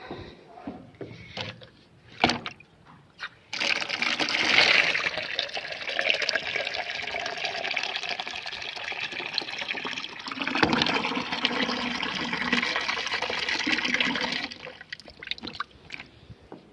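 Water running hard for about eleven seconds, starting abruptly a few seconds in and cut off near the end, its sound changing about two-thirds of the way through. A few short knocks come before it.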